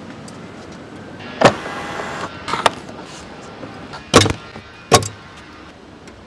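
Body hardware of a 1997 Toyota Century being worked: a door shutting with a solid clunk about a second and a half in, a smaller knock about a second later, then two loud clunks around four and five seconds in from the trunk.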